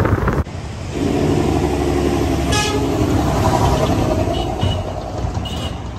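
Motor vehicle running, with a horn held for about two and a half seconds over the engine rumble, followed by a few short high beeps near the end.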